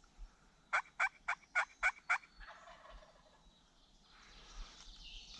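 A series of six loud, evenly spaced turkey hen yelps, about four a second, the calling used to draw a gobbling tom off the roost.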